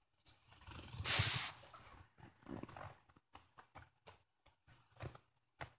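A husky-type dog sniffing and snuffling at a sock on the carpet, with one loud snort about a second in, then scattered short sniffs and light taps.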